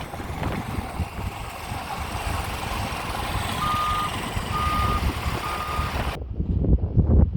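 A construction vehicle's backup alarm beeps three times, each beep about half a second long and about a second apart, over steady rumbling outdoor noise. About six seconds in the sound changes abruptly to wind buffeting and thumps on the microphone.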